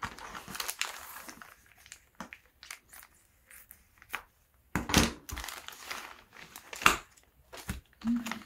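Clear plastic parts bags crinkling as they are handled, and scissors cutting one bag open, with two loud sharp snaps about halfway through and again two seconds later.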